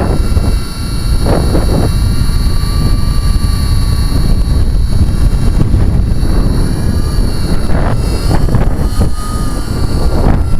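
Blade 120SR micro RC helicopter's small electric motors and rotors whining, the pitch wavering as the tail motor works hard to hold the heading in gusty wind. Heavy wind rumble on the microphone runs underneath.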